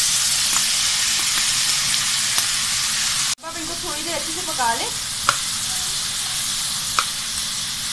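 Chopped green bell pepper and carrots sizzling in hot oil in a wok while being stirred with a metal spoon, with a few sharp clicks. The hiss breaks off for an instant about three seconds in.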